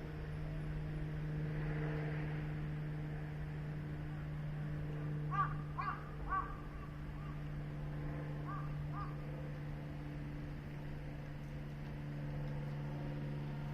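A bird calling outdoors: three calls about half a second apart around the middle, then two fainter ones a few seconds later, over a steady low hum.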